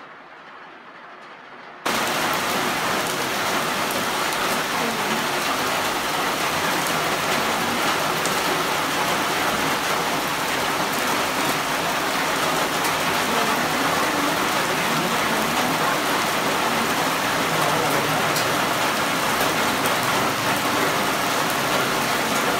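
Heavy rain pouring steadily onto trees and a wet concrete yard, a dense even hiss. After a quieter start, it jumps abruptly to full loudness about two seconds in.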